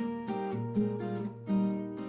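Background music: plucked and strummed acoustic guitar playing a steady run of notes.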